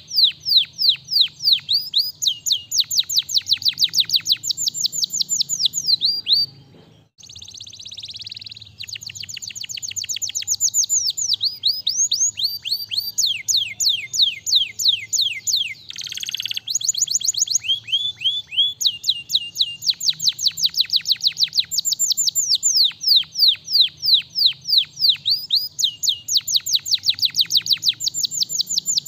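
Domestic canary singing: long trills of rapid, repeated downward-sliding whistled notes, several a second, broken by brief pauses.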